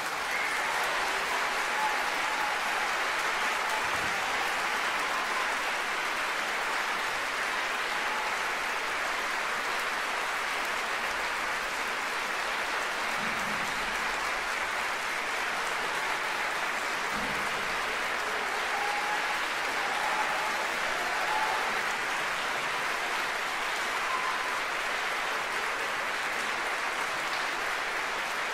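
Large theatre audience applauding steadily: dense, even clapping that holds at a constant level.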